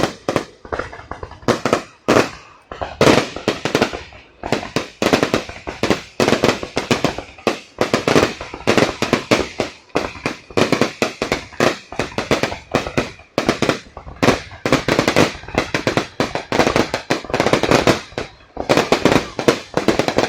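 Fireworks display: a continuous barrage of bangs and crackling reports, many a second, with no let-up.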